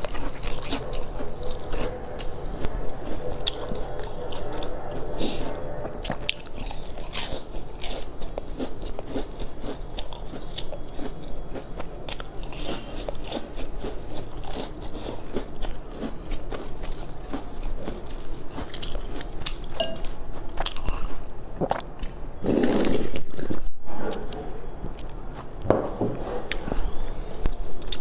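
Close-up crunching bites and chewing of a crisp, flaky round pastry with a sesame-coated rim, with many small crackles as the layers break. One louder stretch of about a second comes near the end.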